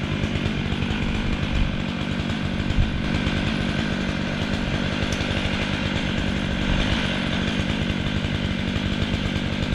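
Chainsaw running steadily at high revs, cutting into the trunk of a large tree.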